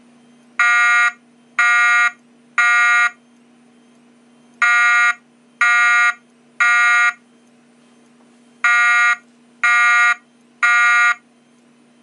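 Wheelock ET-1010 speaker/strobe sounding a buzzy fire-alarm tone in the temporal-three pattern: three half-second beeps, a pause, and the group repeated three times. Temporal-three is the standard signal to evacuate for a fire.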